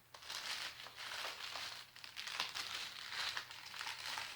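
Packaging crinkling and rustling in irregular bursts as a parcel is handled and opened by hand, with a brief lull about halfway through.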